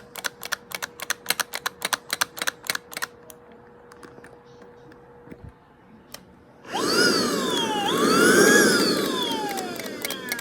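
Rapid clicking, about five clicks a second, for the first few seconds; then, nearly seven seconds in, a vacuum cleaner motor comes on loudly with a whine that dips, rises and then falls away.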